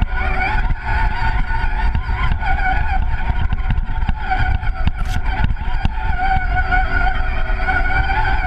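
Radio-controlled crawler truck driving through snow, heard from a camera mounted on it: a steady, wavering whine from its motor and gears over a low rumble, with scattered knocks as it bumps along.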